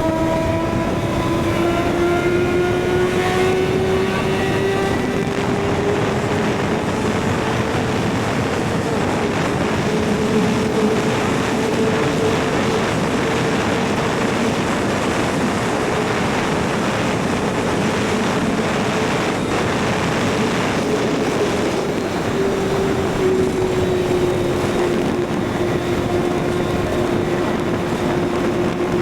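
Kawasaki ZX-6R inline-four engine pulling steadily under way, with its pitch climbing over the first several seconds, then holding at cruise and dropping slightly later on. Heavy wind and road noise runs underneath.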